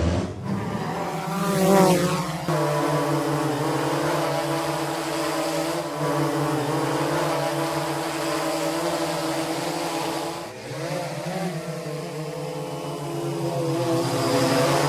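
Quadcopter drone's propellers buzzing in a steady, layered hum. The pitch rises with a loud swell about two seconds in, then dips and climbs again around ten seconds.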